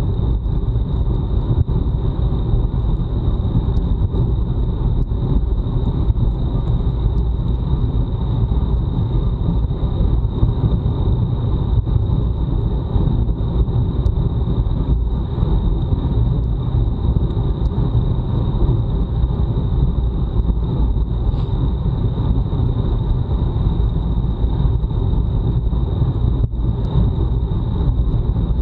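Wind rumbling steadily over the microphone of a bike-mounted action camera at racing speed, with a thin steady high whine over it.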